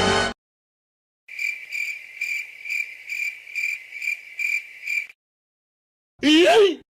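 Cricket chirping sound effect, the 'crickets' awkward-silence meme: about nine evenly spaced chirps over roughly four seconds. Near the end a short, loud separate sound effect whose pitch swoops up and down.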